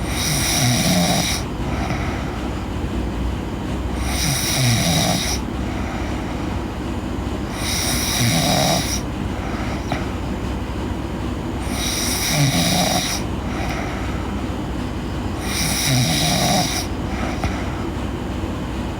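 A sleeping girl snoring, about one snore every four seconds. Each is a rough low rattle with a breathy hiss, five in all, over a steady low hum.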